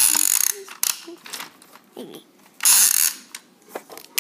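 Toy train set pieces handled by hand, giving a run of small plastic and wooden clicks, knocks and rattles. Two short, loud hissing bursts come at the start and again a little under three seconds in.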